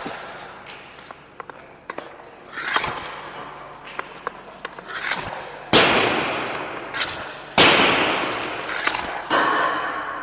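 Wrist shots with a Bauer Nexus Geo hockey stick: about five sharp cracks of stick and puck hitting, the loudest three in the second half. Each crack rings on in the arena's echo.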